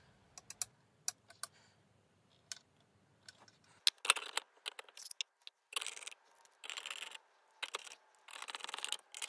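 Workbench handling sounds from reassembling an LED PARcan: scattered light clicks and taps over a low hum that cuts off about four seconds in, then short bursts of scraping and rattling as the plastic lens array is set on and screwed down.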